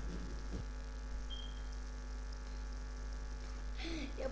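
Steady electrical mains hum with faint room tone, and a short faint high tone about a second in.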